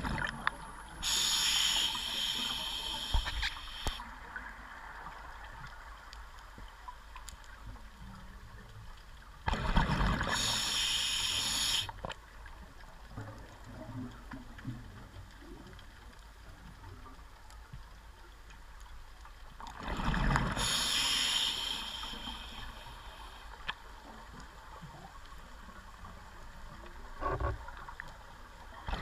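Scuba diver breathing through a regulator underwater: three exhalations, each a rush of bubbles lasting two to three seconds, about ten seconds apart, with a quieter steady hiss between.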